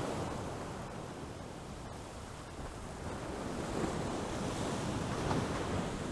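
Rushing sea-and-wind ambience: a steady surf-like noise that swells and eases over a few seconds.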